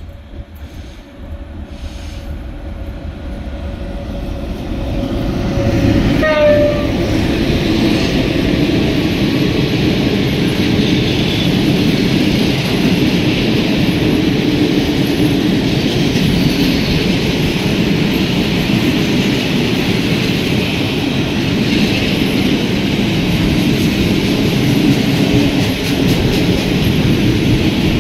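ET42 twin-unit electric freight locomotive approaching and passing, growing louder over the first six seconds with a steady whine that ends as it goes by. A long train of coal gondola wagons follows, rolling past with steady wheel-on-rail noise and clickety-clack, the train climbing a grade.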